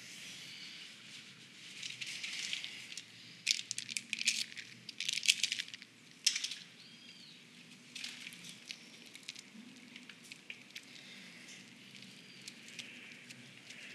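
Close-up rustling of clothing as hands fumble at a waistband, with a cluster of sharp clicks and rattles about three to six seconds in. A quieter rustle continues afterwards.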